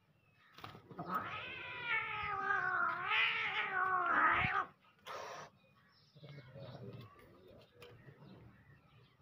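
A cat yowling: one long drawn-out call of about three and a half seconds that wavers in pitch, followed by a short hissing-like noisy burst and fainter rustling.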